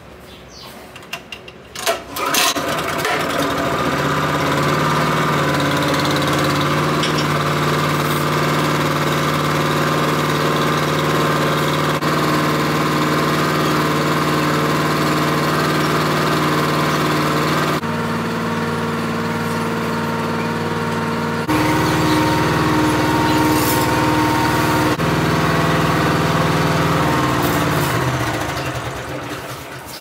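Small gasoline engine starting after a few knocks, then running steadily. Its tone changes for a few seconds about two-thirds of the way through, and it winds down and stops near the end.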